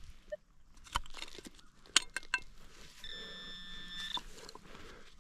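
A few sharp clicks and knocks during the first half, then a steady electronic tone about a second long, about three seconds in, from a metal detector sounding on a dug-up metal target.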